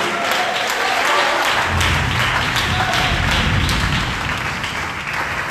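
Church congregation applauding and calling out in response to the sermon, with music sounding along and a strong low note from about two seconds in to about four.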